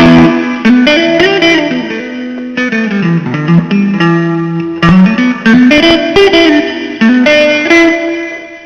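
Blues guitar playing an instrumental lead phrase of picked notes with bent notes sliding up and down in pitch, dying away near the end.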